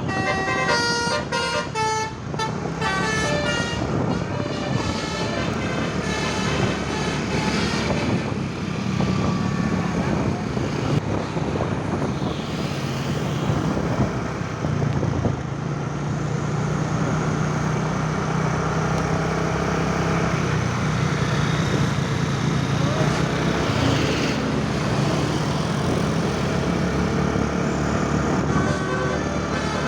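Basuri 'telolet' multi-tone bus horn playing a quick run of notes in the first few seconds, then the steady running of a bus engine with road noise.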